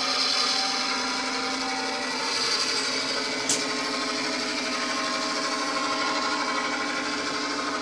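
AristoCraft G-scale Dash-9 model locomotive running, its ESU sound decoder playing a steady diesel prime-mover sound through the loco's speaker, mixed with the whine of its drive. The decoder's engine sound is more like an EMD 16-645 than the GE engine of a real Dash-9, which the owner calls strange. A brief sharp click about three and a half seconds in.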